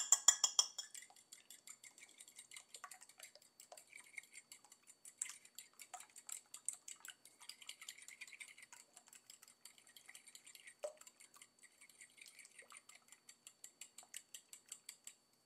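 Eggs being beaten for an egg wash: a utensil whisked quickly around a bowl, making a fast, steady run of light clicking taps, loudest in the first second.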